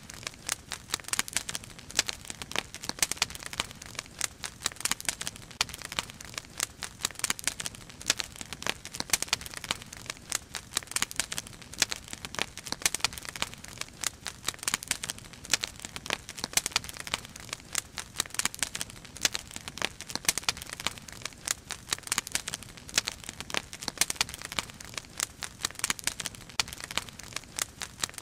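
Firewood burning, with dense, irregular crackling and popping.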